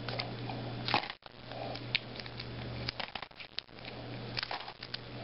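Clear plastic coin-roll wrapper crinkling as it is peeled off a roll of pennies, with scattered light clicks as pennies drop onto a cloth.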